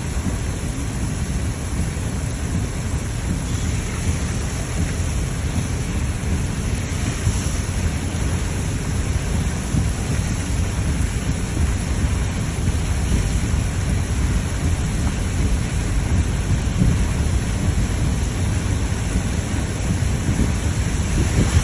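Steady rain hissing over a constant low rumble, unchanging throughout.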